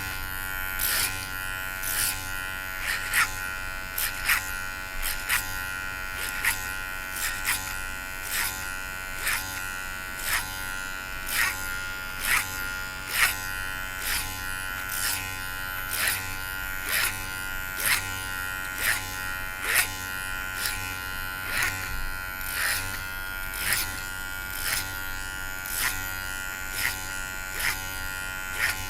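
Electric hair clipper running with a steady buzz while cutting short hair, with short sharp clicks about one and a half times a second.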